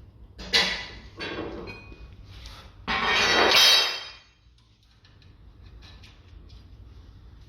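Metal clanks and rattling of tools against car suspension parts: a sharp knock about half a second in, a second smaller one, then a louder metallic rattle lasting about a second.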